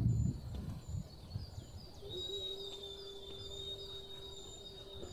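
Birds calling outdoors: a short high chirp repeated about twice a second. About two seconds in, a steady high whistling tone starts and holds for about three seconds. A low rustle fades out at the start.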